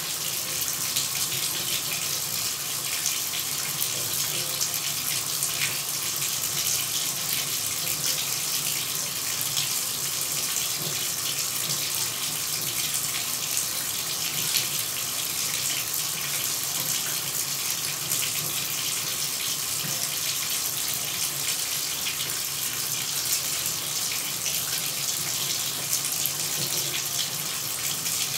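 Shower running, its spray of water falling in a steady, even rush with no breaks.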